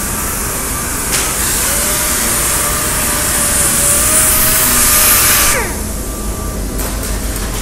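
Air-powered orbital sander running on a sheet-metal panel: a loud airy hiss with a steady whine starts about a second in, runs for about four and a half seconds, then stops with the whine falling in pitch as the sander spins down. A steady workshop hum continues underneath.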